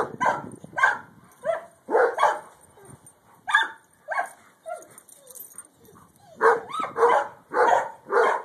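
A dog barking: about a dozen short barks in quick bunches, with a pause of about two seconds in the middle.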